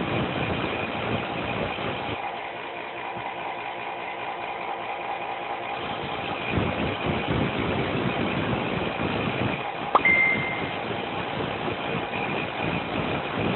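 Electric grinding tool running steadily with a constant whine while shaping a metal lock-pick blank. It turns quieter for a few seconds, then louder and rougher, and a sharp click about ten seconds in is followed by a brief higher tone.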